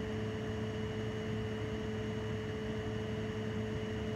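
Steady room hum over an even hiss, with several constant held tones, unchanging throughout.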